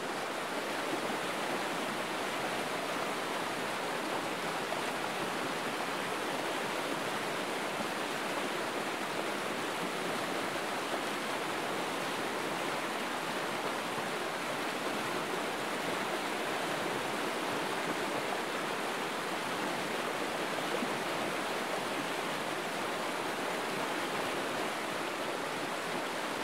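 Waterfall: falling water rushing in a steady, even roar with no let-up.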